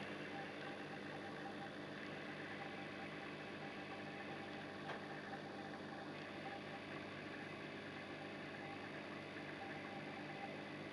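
Steady hum and water circulation of a saltwater aquarium's pump, with a faint click about five seconds in.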